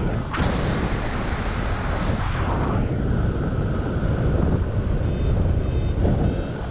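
Wind rushing and buffeting over the camera microphone in paraglider flight. From about five seconds in, a variometer gives short, repeated high beeps.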